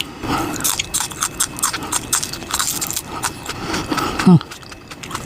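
Close-miked chewing of a mouthful of crab salad rice paper roll: wet mouth clicks and smacks. A brief falling hum from the eater comes about four seconds in.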